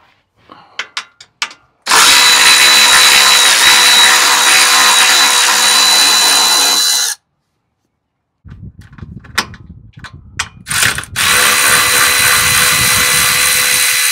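Milwaukee cordless power tool running in two long steady bursts of about five and four seconds, a motor whine of one fixed pitch, spinning out the bolts of a plastic skid plate. Light clicks and knocks come before each run as the tool is set onto the bolts.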